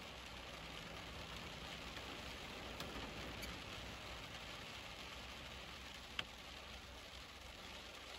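Steady heavy rain hissing on a vehicle and its windows, with a low rumble underneath. A few sharp ticks stand out, the loudest about six seconds in.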